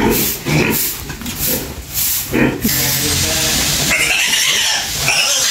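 A group of young piglets grunting and squealing in a concrete pen as they are grabbed at. For the first half the noise comes in short, quick pulses; from about halfway a steady hiss runs under it.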